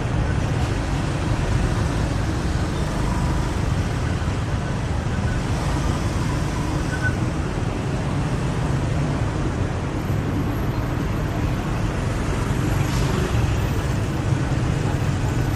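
Steady street traffic of cars and motorbikes, heard from a moving electric unicycle, with a constant low rumble.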